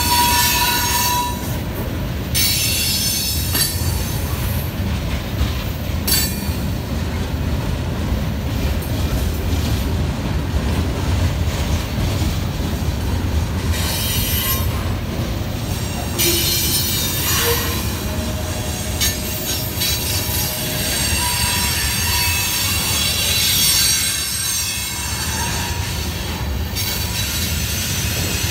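Freight cars of a CSX manifest train, tank cars then covered hoppers, rolling past. The wheels give a steady low rumble on the rails, with high-pitched flange squeal coming and going as they take the curve.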